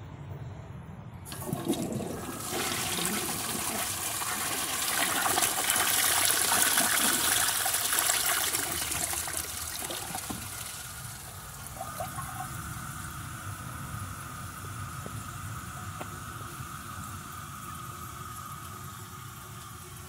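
A 1955 Universal-Rundle toilet flushing a sago palm cone down. The flush starts about a second in with a rush of water, loudest midway, then eases. The tank then refills with a steady hiss and a thin steady tone.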